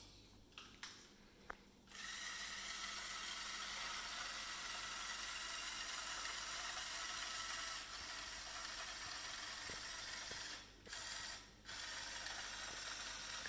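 Lego electric motor whirring steadily as it drives a toy lift through a gear reduction, a smaller gear turning a bigger one so the lift rises slowly. It starts about two seconds in after a few small clicks, and cuts out briefly twice near the end.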